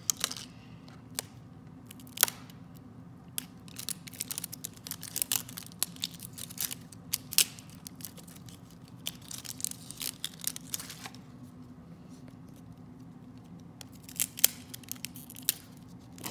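Sticker wrapping being peeled off a plastic L.O.L. Surprise toy ball, unwound in a strip around the ball: irregular crackling and tearing with sharp ticks, pausing for a couple of seconds late on before a few more crackles.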